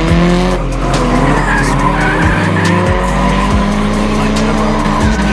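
Drift cars sliding sideways in tandem, engines revving and tyres squealing, with music with a heavy bass line mixed over it.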